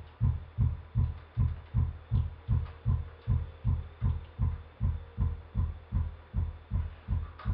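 A looped kick drum sample playing over studio speakers, a low thump repeating nearly three times a second. It is electronically summed with delayed copies, as the subs in a delayed arc would be, which turns its punchy pop into a deeper, less dynamic flop.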